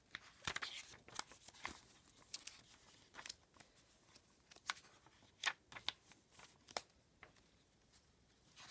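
Paper pages of a journal being turned and handled by hand, with scattered soft rustles, crinkles and page flicks. The sharpest flick comes about five and a half seconds in.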